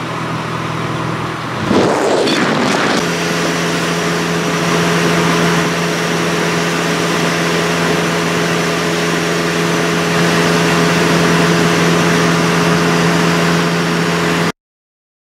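Motorcycle engine running steadily at highway cruising speed under heavy wind rush. About two seconds in there is a short surge of noise, after which the engine note holds steady. The sound cuts off suddenly near the end.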